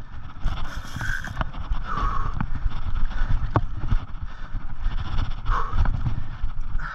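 A large saltwater spinning reel, a Shimano Twin Power 8000 SW, being cranked against a hooked giant trevally, under a steady low rumble of wind and handling noise on the camera. A few short hisses and sharp clicks come through, one clear click about three and a half seconds in.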